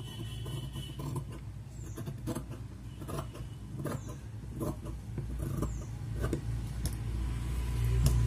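Tailor's scissors cutting through blouse fabric for a sleeve: a series of short snips, roughly one a second, over a steady low background hum.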